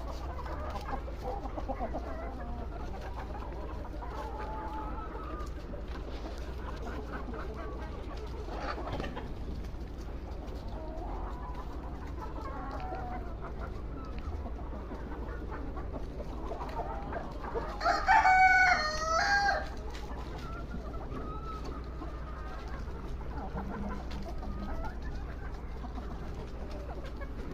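Chickens clucking with faint wavering calls throughout, and a rooster crowing loudly once, about eighteen seconds in, a crow of under two seconds.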